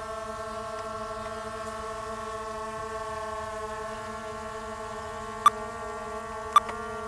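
Steady, slightly wavering hum of a hovering Skydio 2 camera drone's propellers, made of several even tones. Two sharp clicks come about five and a half and six and a half seconds in.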